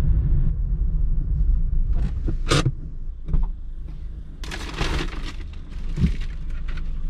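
Low road and engine rumble inside a car's cabin, with a few sharp clicks and knocks and a brief rush of noise about halfway through.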